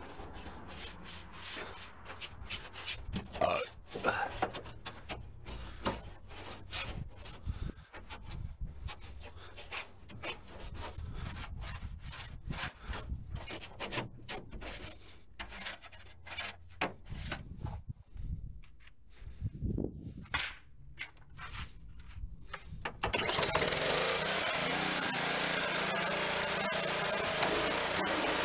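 Irregular hand rubbing and scraping strokes on a surface, typical of scrubbing or scraping during vehicle detailing. About 23 seconds in a steady, louder hiss starts suddenly and carries on.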